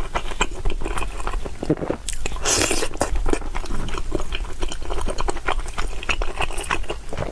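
Close-miked chewing and biting of food: a run of short wet mouth clicks and crunches, with a brief louder noisy stretch about two and a half seconds in.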